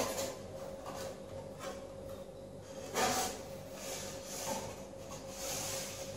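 Foam fuselage with foam formers and carbon rods being lifted and turned by hand: light rubbing and handling noises, with a sharper, louder knock about three seconds in, over a faint steady hum.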